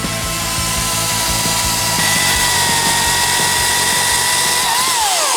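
Greenworks 60V brushless battery chainsaw running flat out with a steady high whine over a dense rush of chain noise, its pitch dropping as it winds down near the end. Background music plays underneath.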